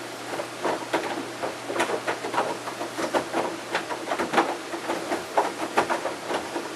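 Panasonic NA-VX7000R drum washer-dryer running, with an irregular patter of short knocks and clicks, several a second, over a faint steady hum.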